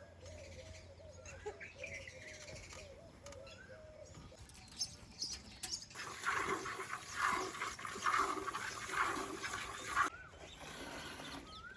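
Animal calls with birds, the loudest a run of repeated calls from about six to ten seconds in.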